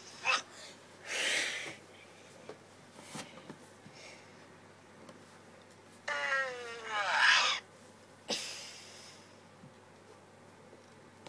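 Wet coughing, a few separate coughs with quiet gaps between, and a short voice-like cry that falls in pitch about six seconds in.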